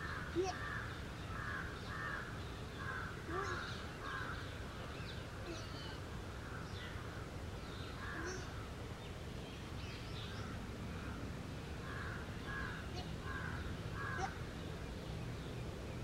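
A crow cawing in runs of short harsh calls about half a second apart: one run in the first few seconds, scattered calls in the middle, and another run near the end. Fainter high chirps of other birds and a low steady rumble lie underneath.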